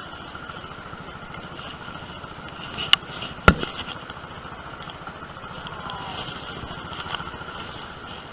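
Scooter engine running steadily at low speed, heard from a camera mounted on the bike, with two sharp knocks about half a second apart around three seconds in.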